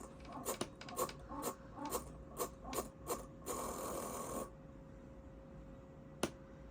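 Old laptop making a strange mechanical noise: a run of short scratchy clicks, about two a second, then a harsh rasp lasting about a second, over a faint steady whine. A single sharp click comes near the end.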